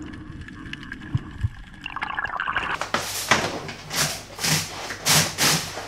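Water from a kitchen tap splashing into a stainless steel sink in uneven gushes, as something is rinsed under the stream. It starts about halfway in, after a quieter stretch of faint clicks.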